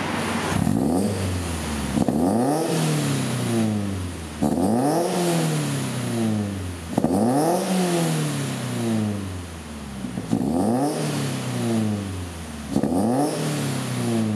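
Subaru BRZ's 2.0-litre flat-four boxer engine, breathing through an aftermarket full exhaust system, blipped repeatedly while parked. Each rev climbs quickly to about 3,500 rpm and falls back toward idle, about six times, every two to three seconds.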